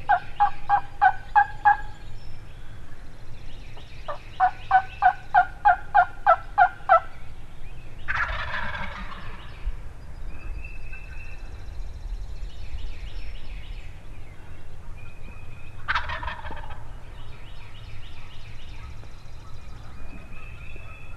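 A hunter's turkey call yelping in two quick runs of loud, evenly spaced notes. Then a wild turkey gobbler gobbles twice in answer, about eight and sixteen seconds in.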